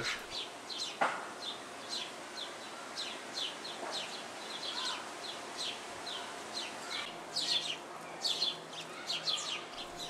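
Small backyard songbirds chirping: short high notes, each sliding downward, about two to three a second, with a soft knock about a second in.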